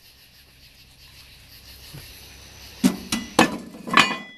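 Heavy rusty steel plates clanking against each other and the tractor's metal body as they are dropped in as rear ballast. Four sharp metallic clanks, each ringing briefly, come in the second half.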